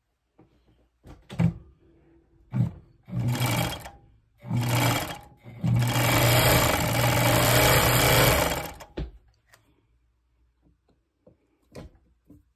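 Old Bonis Never Stop A-model fur sewing machine, belt-driven, run empty with the foot pedal in short starts: two brief bursts, two runs of about a second, then a steady run of about three seconds that stops about nine seconds in.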